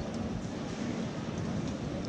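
Steady low rumbling background noise of a large airport terminal hall, with no distinct events.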